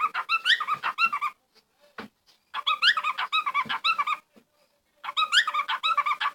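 An animal giving quick, high yips in three runs of about a second or so each, with short pauses between them.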